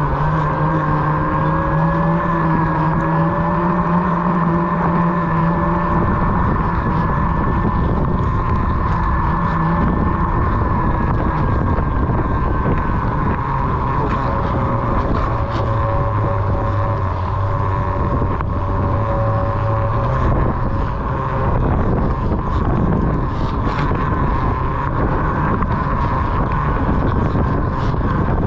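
Onewheel XR electric hub motor whining as it is ridden, its tones drifting slightly up and down in pitch, over a steady rumble and wind noise on the microphone.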